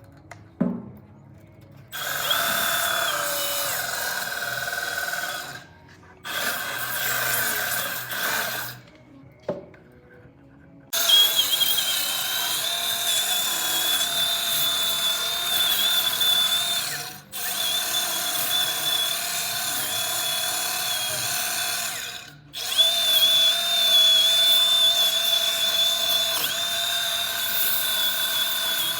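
A Milwaukee M12 Fuel 2531-20 cordless band file sands a steel axle shaft where a bearing has seized. It runs in five stretches of a few seconds each, separated by brief stops, with a steady high whine over the gritty rasp of the belt on metal.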